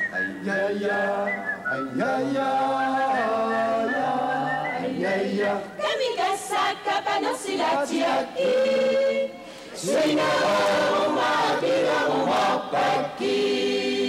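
Greenlandic mixed choir of men and women singing a cappella in harmony, with long held notes. The voices stop briefly a little past the middle, then come back in.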